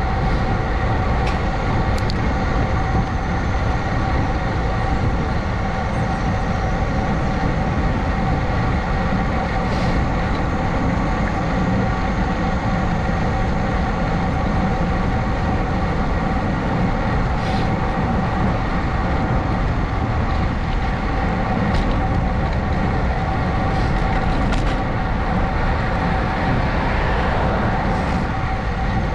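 Steady wind rush on a ride-mounted GoPro's microphone while riding at speed, with a steady whine from the moving vehicle underneath and a few faint ticks.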